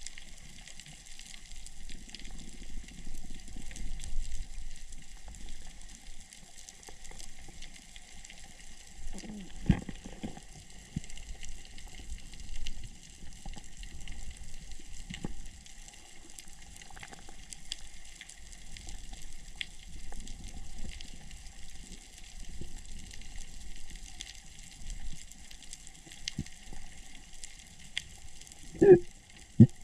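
Muffled underwater noise heard through an underwater camera: a low, uneven water rush with scattered small knocks. There is a sharp knock about ten seconds in and two louder knocks near the end.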